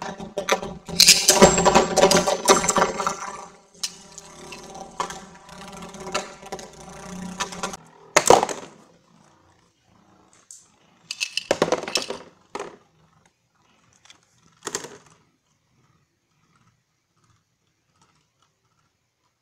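Two plastic Beyblade Burst spinning tops clashing and rattling against each other and the walls of a plastic stadium, with a sharp clatter about eight seconds in. A few smaller clatters follow as one top bursts apart and its pieces come loose, and then it goes quiet.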